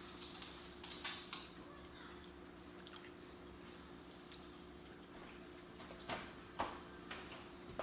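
Close-up mouth sounds of someone eating pizza: chewing and lip smacking, with a cluster of smacks about a second in and two louder ones near the end, over a faint steady hum.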